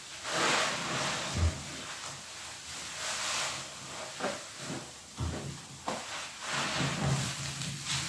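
Soap-soaked sponge squeezed and wrung by hand over a tub of suds: wet squelching and fizzing foam in several surges, with a couple of soft low thumps.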